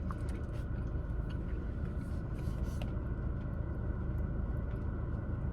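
Steady low hum of a car's interior with the engine running, with a few faint small clicks.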